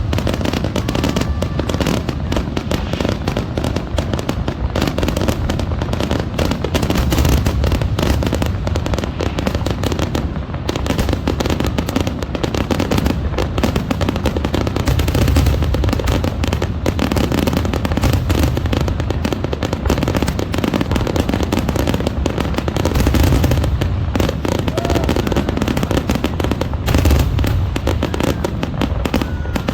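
Aerial fireworks: a dense, continuous barrage of booming bursts and crackles with no pauses.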